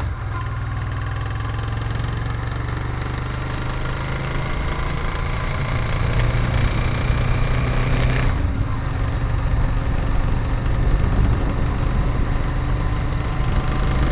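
Honda Africa Twin motorcycle engine running with a knocking sound. The revs climb gradually for a few seconds, then drop back sharply a little past halfway.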